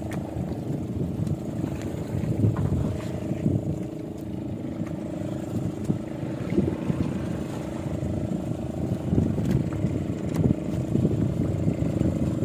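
Boat engine running steadily with an even hum, over an irregular low rumble of wind.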